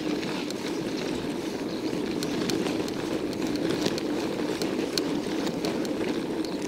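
Steady rush of wind and tyre noise from riding a mountain bike, with light scattered clicks and rattles throughout.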